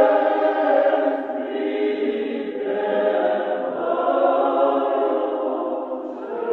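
Church choir singing slow, long-held chords, the harmony changing every second or so.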